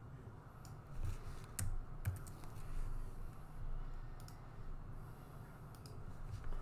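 Typing on a computer keyboard: scattered key clicks in short runs, with pauses between them.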